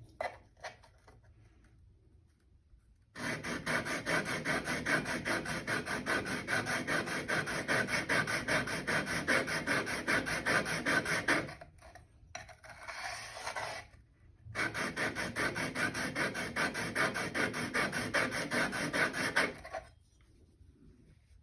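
Thin plane blade being honed: steel rubbed back and forth on a sharpening abrasive under firm pressure, in quick, even strokes. The strokes come in two long runs with a pause of about three seconds in the middle, and they stop shortly before the end.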